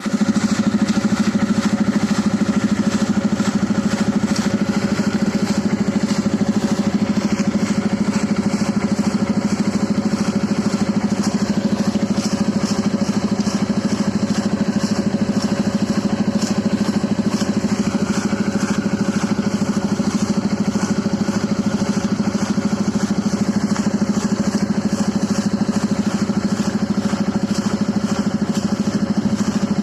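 Engine-driven air compressor running steadily, used to blow out and flush a hand-pump tube well.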